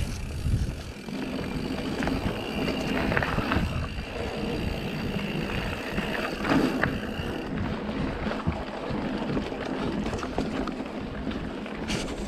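Mountain bike ridden over a dirt singletrack trail: tyres rumbling on the dirt and the bike rattling and knocking over bumps, under wind buffeting an action camera's microphone that has no windscreen.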